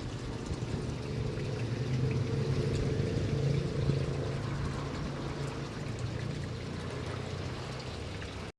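A steady rush of water with a low steady hum under it, a little louder in the middle, cutting off abruptly near the end.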